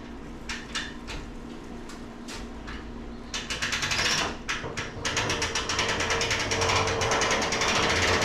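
Hand-cranked boat trailer winch ratcheting as a boat is winched onto the trailer. It starts as short bursts of pawl clicks and turns into steady, rapid clicking about halfway through.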